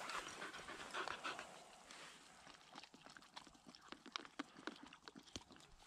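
Boykin spaniel panting and lapping water squirted from a handheld squeeze bottle: faint, irregular wet clicks and soft breaths.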